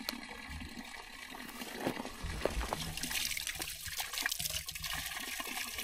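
Water from a natural spring running and trickling, growing louder about three seconds in.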